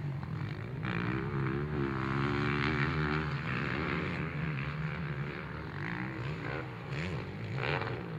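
Motocross dirt bike engine revving across the track, its pitch climbing and dropping again several times as the rider works the throttle through the jumps, over a steady low engine hum.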